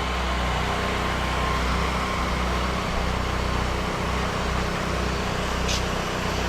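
8 GPM gas pressure washer engine running steadily under load, with the even hiss of the water jet from a narrow shooter tip rinsing the house down.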